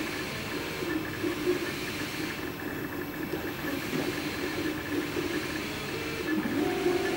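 MakerBot 3D printer printing: its stepper motors whir in short, shifting tones as the extruder head moves back and forth, over a steady hiss.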